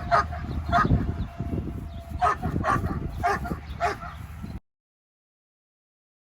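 A dog yipping in short, sharp calls, about seven of them over four seconds. The sound then cuts off to dead silence about four and a half seconds in.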